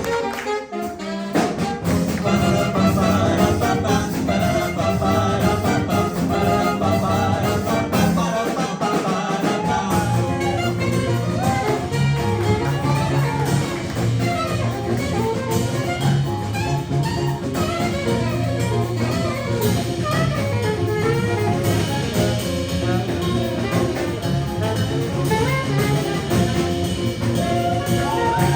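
Band playing an instrumental jazz-fusion passage with horn lines over a drum kit, no vocals. The bass drops out briefly about eight seconds in, then returns.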